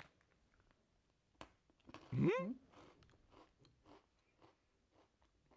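Crisp sesame breadstick (Beskidzkie paluszki) bitten with a sharp snap about a second and a half in, followed by a short rising "mm" hum and then steady crunchy chewing, about three chews a second.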